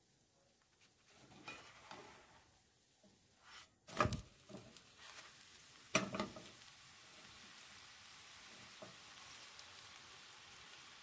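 A crepe being turned over with a spatula in a nonstick frying pan: light scraping, then two sharp knocks against the pan about four and six seconds in. After that a steady sizzle as the crepe fries.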